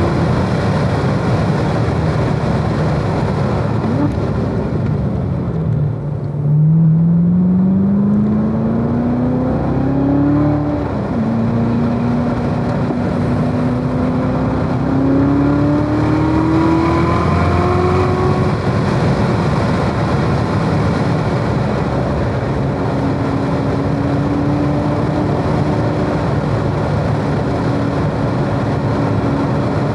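2017 Corvette Z06's supercharged V8 at speed on a race track. The engine note falls about four seconds in, climbs, dips briefly, climbs again, and holds a nearly steady pitch for the last ten seconds, over steady wind and tyre noise.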